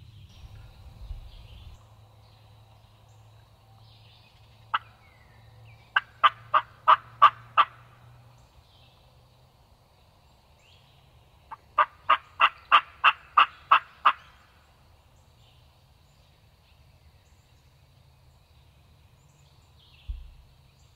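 Two runs of turkey yelps, about seven notes and then about nine, each note short and sharp at roughly four a second, with a single note a second or so before the first run.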